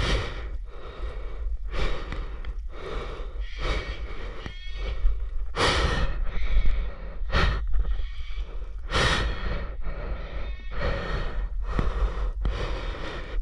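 Heavy breathing close to the microphone, about one breath a second, from the exertion of climbing a tree by its nailed-on wooden steps, over a steady low rumble.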